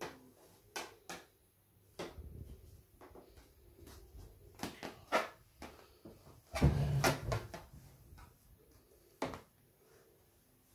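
Scattered taps and knocks of a paint-covered balloon being handled and dabbed onto a canvas on a table, the loudest a dull thump about seven seconds in.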